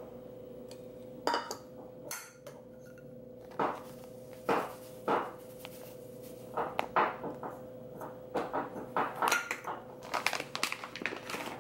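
A dog playing: irregular clattering knocks and thuds, a few spaced apart at first, then coming thick and fast over the last few seconds, over a steady faint hum.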